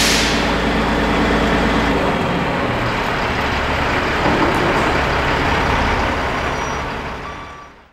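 Heavy diesel engine idling, with a short sharp hiss of released air right at the start; the engine's low note shifts about two seconds in, and the sound fades out near the end.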